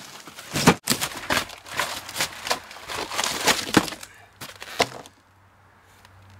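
Cardboard box being tipped over and opened: a quick run of scrapes, knocks and crackles from the cardboard flaps and foam packing, with one sharp knock under a second in. It goes quiet about five seconds in.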